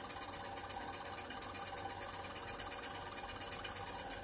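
Steel burnisher rubbing against a watch train wheel pivot held in a Jacot tool, while a bow spins the wheel back and forth: a steady, even scraping as the badly worn pivot is polished.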